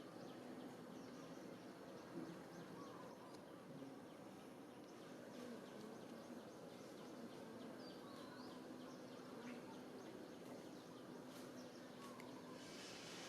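Faint outdoor ambience: a steady low buzz of insects with a few faint, short chirps every few seconds.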